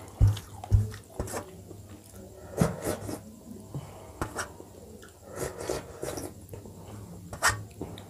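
Fingers scraping and wiping the last dal and rice off a stainless steel plate, with scattered wet clicks and smacks of hand-eating. Two dull knocks come about half a second apart near the start.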